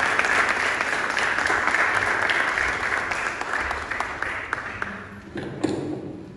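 An audience applauding, a dense patter of many hands clapping that dies away over the last couple of seconds.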